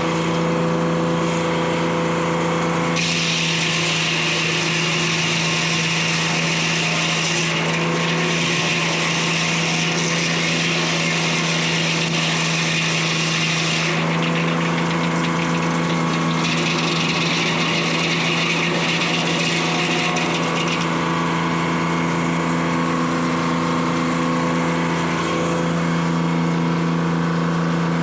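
Detroit Diesel 3-71 two-stroke diesel power unit running steadily, driving a large circular sawmill blade. The blade cuts through a cedar log in two stretches, the first starting about three seconds in, a short pause, then a second cut ending a little past twenty seconds.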